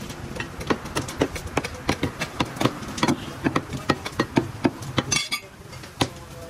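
Heavy meat cleaver chopping mutton on a wooden log chopping block: quick, repeated chops, about three a second.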